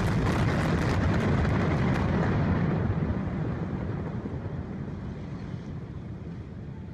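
Demolition charges set off in quick succession along a long highway overpass: a dense crackling blast over a heavy low rumble as the structure drops. The rumble slowly fades over the following seconds.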